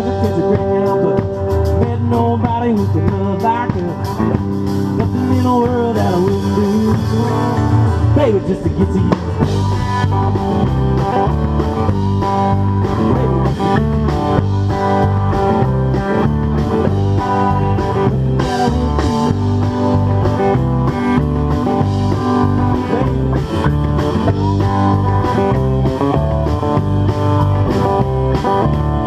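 Live blues-rock band playing: guitars, bass guitar and drum kit with a steady beat, with sliding notes over roughly the first nine seconds.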